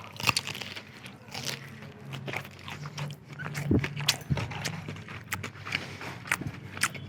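Close-miked biting and chewing into the crisp breaded coating of a broasted chicken leg, in many irregular crunches. It is a crunch test, and the coating is still crunchy.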